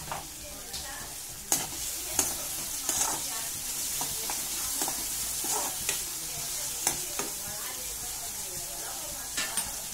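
Sliced onions sizzling in hot oil in a kadai while a steel spoon stirs them, scraping and clinking against the pan about nine times at uneven intervals.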